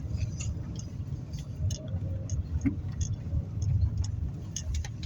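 Low, steady road rumble of a car driving slowly, heard from inside the cabin, with scattered light clicks and ticks over it.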